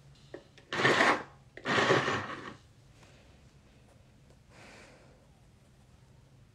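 Two loud, breathy rushes of air close to the microphone, each under a second long and about a second apart, then a much fainter one a few seconds later.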